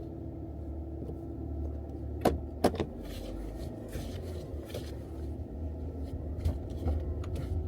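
Car running on the road, heard from inside the cabin as a steady low engine and road rumble, with two sharp clicks a bit over two seconds in.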